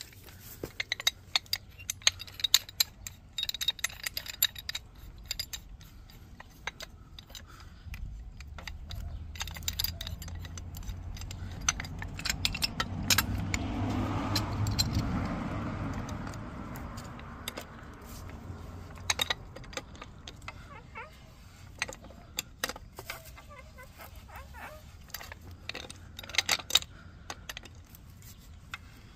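Steel pipe wrenches clinking and scraping against a steel gas riser and its fitting as they are set and tightened, many sharp metallic clicks scattered throughout. A low rumble swells and fades in the middle.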